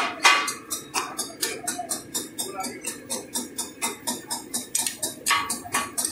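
Two metal chopping blades struck rapidly and repeatedly on a large flat steel tawa griddle as meat is chopped for katakat. It makes a fast clattering rhythm of about five or six metallic clangs a second, each ringing briefly. This is the clatter that gives the dish katakat its name.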